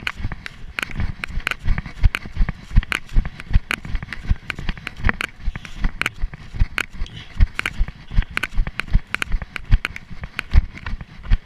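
Running footsteps on dry leaf litter and forest ground, heard through a chest-mounted camera as a steady rhythm of thuds and crunches, about three strides a second.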